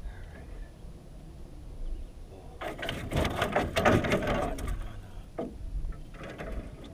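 Fishing reel working as a hooked trout is brought in, a rapid mechanical ticking in spells that starts a few seconds in and comes back briefly near the end.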